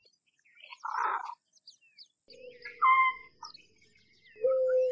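American white ibis calling: three separate calls about a second and a half apart, the last a steady held note near the end, with faint high chirps behind them.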